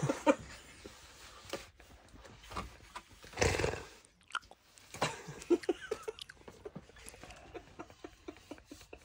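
Lip smacking: soft, wet mouth clicks at irregular intervals, with a breathy rush about three and a half seconds in.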